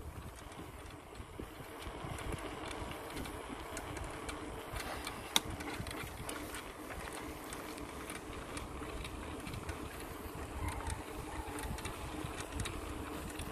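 Folding bicycle rolling along an asphalt road: steady tyre and wind noise with faint rapid ticking, and one sharp click about five seconds in.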